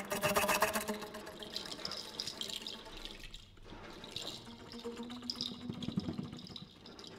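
Contemporary piece for low flute and drum kit in a sparse, noisy passage: a flurry of clicks at the start, then hissing, splashy air and rattle textures, with a low note held briefly after about five seconds.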